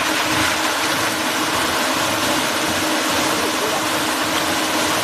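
Eight-impeller 3 HP paddle wheel shrimp aerator running, its paddle wheels churning the pond and throwing up water in a loud, steady splashing, with a steady hum underneath.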